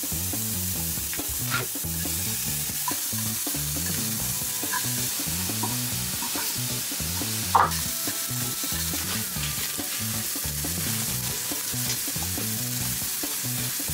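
Diced pork and vegetables sizzling in hot oil in a wok, a steady hiss, with a few sharp clicks of utensils; the loudest click comes about halfway through.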